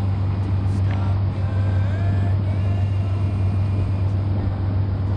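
Steady low drone of a 27-foot sailboat's engine while motoring, with a song's sung melody over it.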